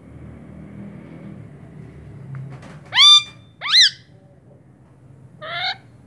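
Indian ringneck parakeet giving two loud, sharp, rising-then-falling squawks about three seconds in, then a rougher call near the end, over a low background rumble.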